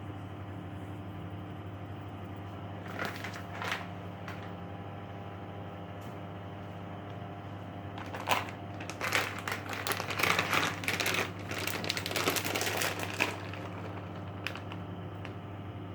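Kitchen handling noises over a steady electrical hum: a few short knocks, then about four seconds of crinkling, rustling noise, and one more click near the end.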